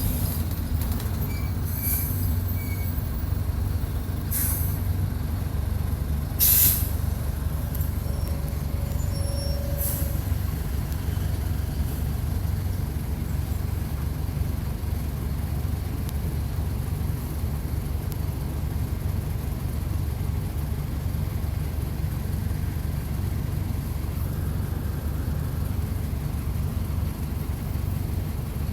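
Mercedes-Benz OF-1722 bus's six-cylinder diesel engine running steadily, heard close to the engine. A few short air hisses from the bus's air system cut in, the loudest about six and a half seconds in.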